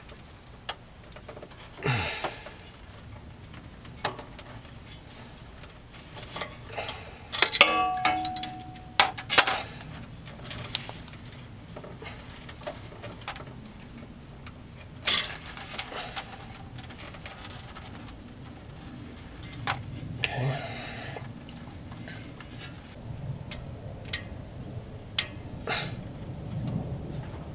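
Scattered clicks, taps and scrapes of hand work on an automatic transmission cooler line: rubber hose being worked onto the metal line and a hose clamp refitted with a screwdriver. About a third of the way in comes a cluster of sharper metallic clicks, one with a brief ring.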